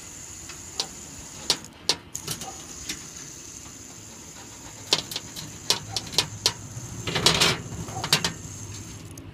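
A plastic fidget spinner handled and flicked in the fingers: a series of sharp irregular clicks, with a short scrape about seven seconds in, over a steady high-pitched whine that breaks off briefly about two seconds in.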